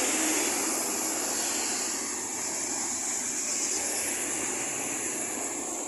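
Traffic on a wet road: a steady hiss of tyres on wet asphalt with vehicle noise underneath, slowly fading as it moves away.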